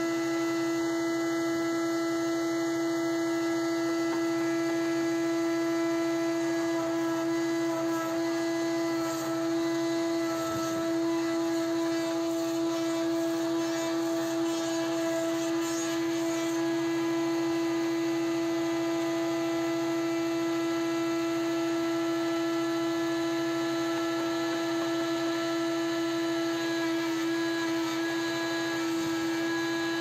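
Wood-Mizer WM4500 industrial band sawmill running: a steady hum at one unchanging pitch. A rougher noise joins in around the middle as the band blade cuts through the log.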